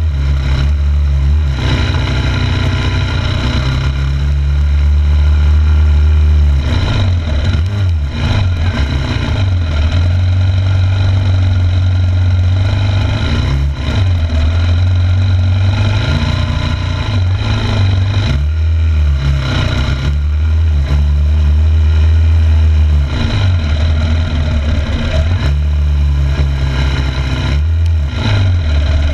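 2006 Yamaha YZ250F's 250 cc four-stroke single-cylinder engine running hard under throttle, its revs repeatedly dropping off and climbing back up as the throttle is closed and opened again.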